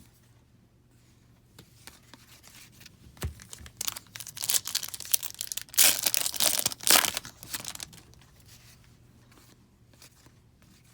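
Foil wrapper of a hockey card pack being torn open and crinkled, in a run of rips from about four to seven and a half seconds in. A few light clicks come before and after.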